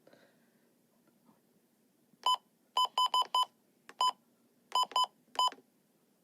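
About nine short, high electronic beeps at uneven spacing, starting about two seconds in, like the key beeps of a device being operated.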